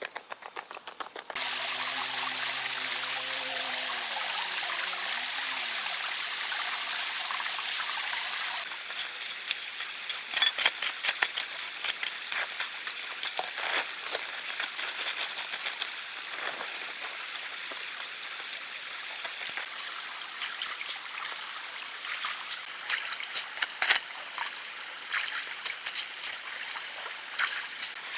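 Running water: a steady rush at first, then irregular splashing with many sharp clicks from about nine seconds in.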